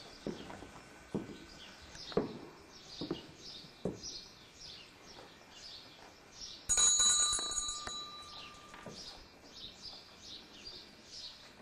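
Small birds chirping over and over in the arena, with a few soft thumps in the first few seconds. About seven seconds in, one sudden loud ring, like a bell struck once, rings on and fades over about two seconds.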